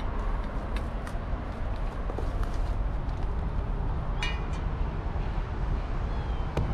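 Steady low rumble of distant city traffic, with a short bright clink about four seconds in.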